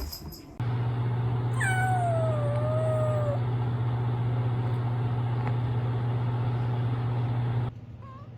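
Kitten giving one long meow that starts high, falls and then holds, over a loud steady low hum; a short, faint meow follows near the end.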